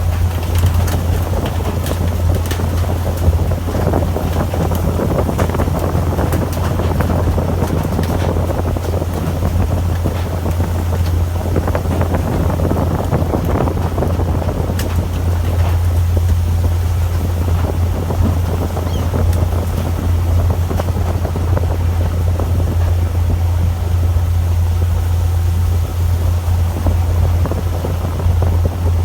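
Fishing boat's engine running with a steady low drone, under wind and water noise, with a few short sharp knocks.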